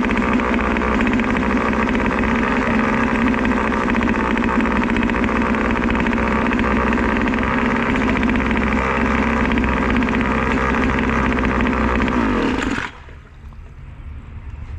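Hangkai 3.5 hp two-stroke outboard motor running steadily, then stopping abruptly near the end.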